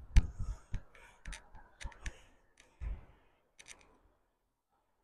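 Irregular sharp clicks and light taps, some in close pairs, over a low rumble; they die away after about four seconds.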